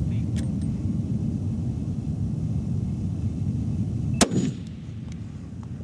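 A single rifle shot from a Swiss K-31 firing 7.5×55mm GP11 service ammunition: one sharp crack about four seconds in with a short echo after it, over a steady low rumble.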